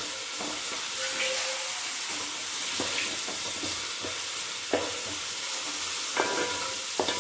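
Chopped onions and curry leaves sizzling in hot oil in a nonstick pan, being sautéed until they soften. A wooden spatula stirs them, scraping and knocking against the pan a few times.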